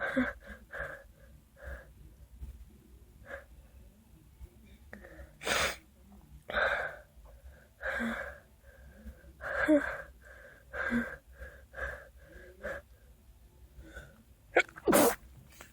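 A person's stuck sneeze: a long run of short, gasping "ah" inhales building up as the sneeze refuses to come, then two sharp sneezes close together near the end.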